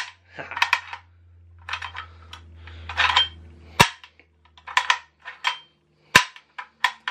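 Metallic clicks and clacks from a non-firing Denix replica Henry lever-action rifle as its loading mechanism is worked by hand: a string of irregular clicks, with two sharp snaps about four and six seconds in.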